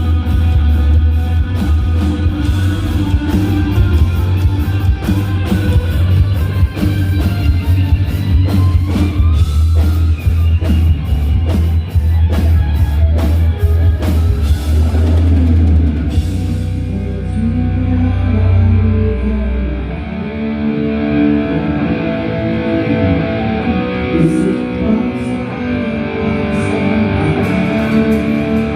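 A live hard rock band playing loud at a sound check, with heavy bass, drums and electric guitar. About sixteen seconds in the drums stop and the bass fades out, leaving the electric guitar playing alone with a few light cymbal hits near the end.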